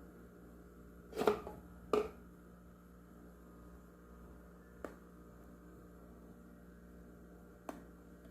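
Two sharp knocks of hard objects, about a second and two seconds in, then two fainter clicks, over a steady low hum.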